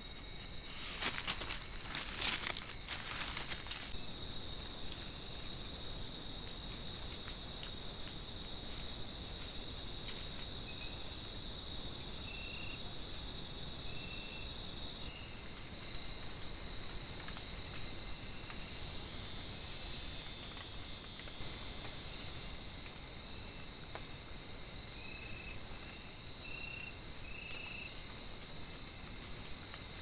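Steady, high-pitched chorus of night insects in tropical rainforest, with short faint chirps repeating beneath it. The chorus drops in level about four seconds in and jumps louder about fifteen seconds in, where the recording cuts.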